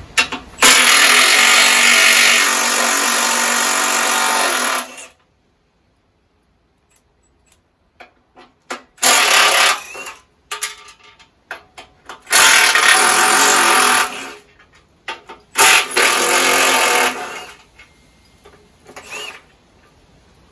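Cordless power tool run in four separate bursts, the first about four seconds long and the next three shorter, undoing bolts on a removed Fiat 500 front subframe; light metal clinks and knocks fall between the bursts.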